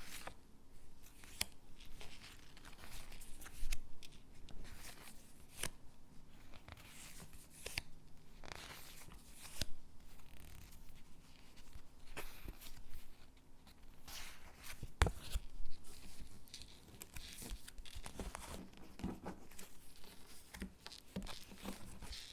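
Stickers being peeled off their backing sheet and pressed onto paper cutouts: irregular soft peeling and scratchy paper rustles with light taps, the sharpest tap about 15 seconds in.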